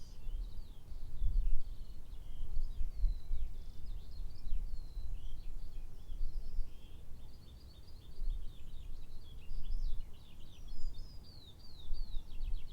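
Small birds chirping and singing, with many short sliding notes overlapping throughout, over a low rumble that rises and falls.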